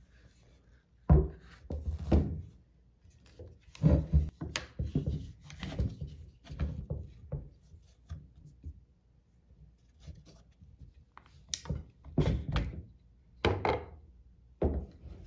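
Irregular knocks, clunks and rubbing from a crossbow and its quiver being handled and set down on a wooden tabletop while a side-mount quiver bracket is slid onto the rail and fitted.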